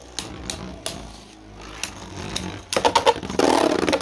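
Beyblade Burst spinning tops in a plastic stadium, clicking sharply now and then as they knock together. About three seconds in this turns to a loud, rapid rattling clatter.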